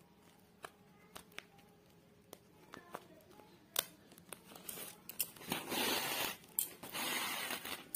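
Woven plastic sack rustling and scratching as it is handled and a needle with yarn is worked into its weave: a few light clicks, then two long rasping rustles of about a second each near the end.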